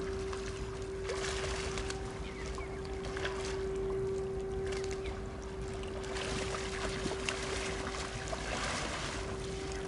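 A steady hum held at one even pitch, over a low rumble of wind on the microphone.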